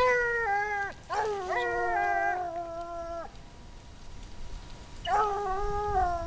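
Ariégeois scenthounds baying in long drawn-out howls: one call, then two voices overlapping for about two seconds, a pause, and another call near the end. This is the pack giving tongue as it trails a hare.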